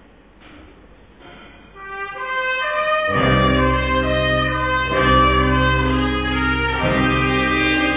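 A ska/reggae band with a brass section starting a tune. The horns come in softly about two seconds in, and the full band with a heavy bass line joins about a second later.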